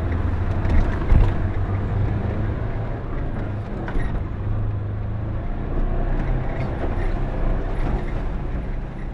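A vehicle's engine running as it drives over a rough, muddy woods trail: a steady low rumble, with a couple of sharp knocks from bumps about a second in.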